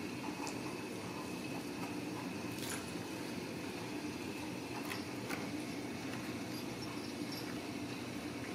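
Steady low hum of room noise, with a few faint clicks and taps from kittens playing on cardboard scratcher pads and a tiled floor.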